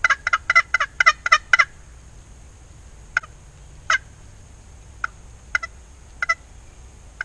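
Wild turkey calling: a quick run of about ten short notes in the first two seconds, then single notes about once a second.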